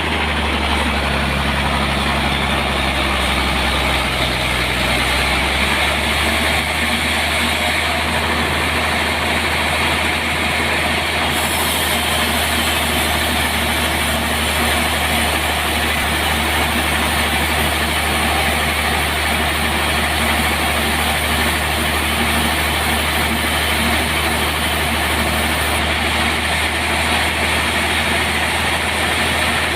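Sawmill machinery running steadily: a loud, constant engine-like drone with a dense even noise over it, unbroken throughout.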